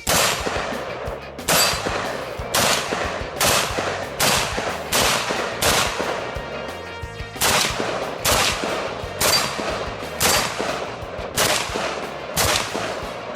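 Semi-automatic rifle fire from a Mini Draco AK pistol in 7.62x39: about thirteen single shots at roughly one a second, each with a short ringing tail, and a gap of nearly two seconds midway.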